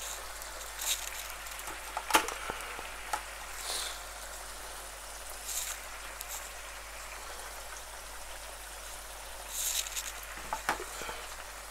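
Chopped onions frying in hot oil in a non-stick wok: a steady sizzle with occasional pops and brief louder spits.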